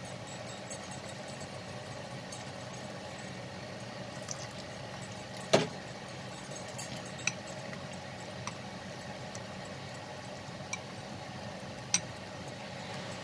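A utensil stirring thick gram-flour batter in a bowl, with soft scraping and many light clinks against the bowl, two sharper clinks about halfway through and near the end. Under it runs a steady background hum.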